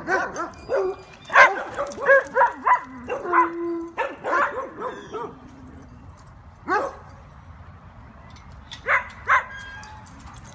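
Dogs barking and yipping: a quick run of barks through the first five seconds or so, with a brief whine among them, then a single bark about seven seconds in and two more near the end.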